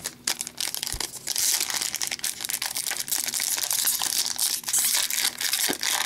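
Shiny foil wrapper of a hockey card pack being crinkled and torn open by hand, a dense crackling with many sharp clicks that builds up about a second in.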